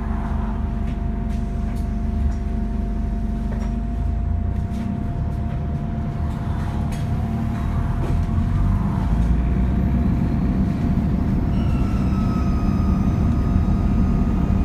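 Diesel bus engine running under load with a steady whine. About two-thirds of the way in, the engine pulls harder and a high turbocharger whine rises slowly in pitch as the turbo spools up.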